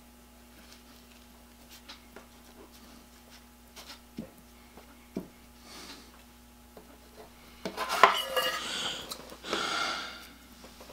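Small taps and ticks of hands working masking tape onto a gear, then metal shears clattering as they are picked up off the bench about eight seconds in, followed by a strip of masking tape being pulled off its roll with a short ripping hiss.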